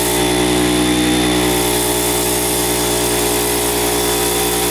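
Air compressor running steadily, filling a small cart tyre through a chuck on its valve.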